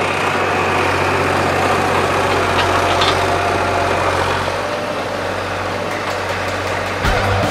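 An engine running steadily: a constant low hum under a loud, even rushing noise.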